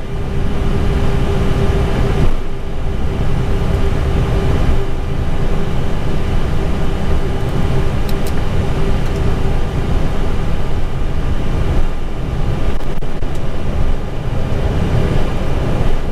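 Steady cockpit noise of an Airbus A320 taxiing on idle engines: a constant low rumble with a thin steady hum running through it.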